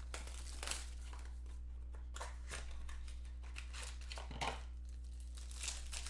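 Foil and clear plastic wrapping crinkling and tearing as a sealed trading-card box is unwrapped by hand, in irregular scrunches, over a steady low hum.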